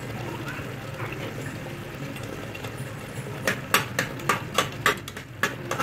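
Metal spatula stirring thick tomato puree in an aluminium pressure-cooker pot, knocking and scraping against the pot in a quick irregular series of clinks that begins about three and a half seconds in. A steady low hum runs underneath.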